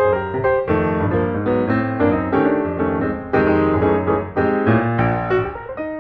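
Background piano music, notes struck in quick succession over a sustained bass.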